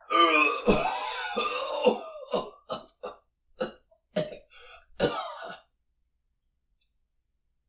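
A man coughing in a fit: a strained voiced start, then about nine short coughs over some five seconds, coming further apart and weaker toward the end.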